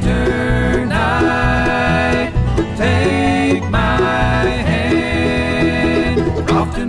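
Bluegrass-style music with plucked banjo and guitar playing steadily.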